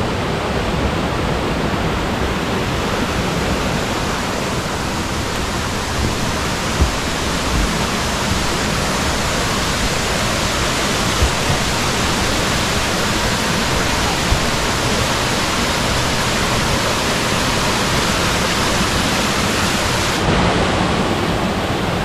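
Mountain stream rushing and splashing over granite boulders in small cascades: a loud, steady rush of water.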